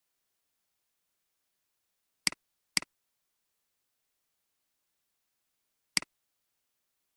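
Three computer mouse clicks, each a sharp press-and-release click. Two come about half a second apart a little after two seconds in, and the third near the end.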